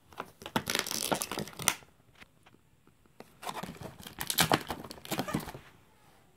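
Plastic toy packaging crinkling and crackling as it is handled, in two bursts of about two seconds each.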